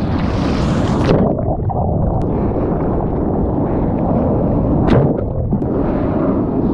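Ocean shore break heard from a camera at water level: the hiss of whitewater cuts off about a second in as the camera goes under, leaving the muffled rumble of turbulent water, broken by a short sharp splash near five seconds. The brighter wash of surf comes back in the last second or so as it surfaces.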